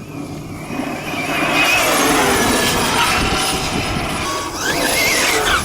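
1/5-scale RC buggy on 12S brushless electric power being driven, its motor whine sliding up and down in pitch over a rush of tyre and ground noise. It grows louder about a second in and stays loud.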